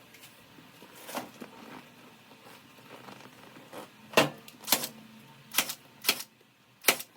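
Milwaukee staple gun firing staples through a vinyl seat cover into a plastic seat base: a series of sharp, irregularly spaced shots, one about a second in and five more in the second half.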